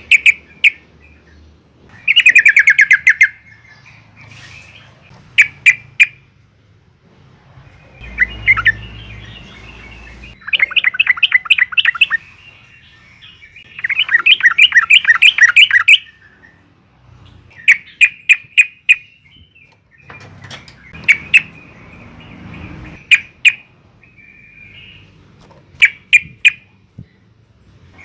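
Yellow-vented bulbul (trucukan) singing loudly: clusters of sharp, quick notes alternating with fast chattering runs of about ten notes a second, the 'ngriwik' chatter and open 'ngeplong' song that keepers use as a lure call to set other trucukan singing.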